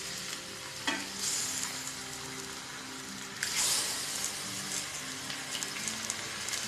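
Raw beef pieces sizzling in hot oil with fried onions and spices in a stainless-steel pressure cooker as they are turned with a wooden spatula. The sizzle swells about a second in and again just past the middle.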